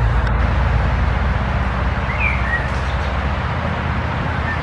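Steady, loud traffic noise from a nearby main road. A bird chirps twice about two seconds in.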